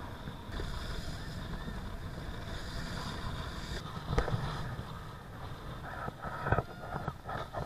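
Wind rushing over a kiteboarder's action-camera microphone, with water hissing past and a few sharp knocks from about four seconds in.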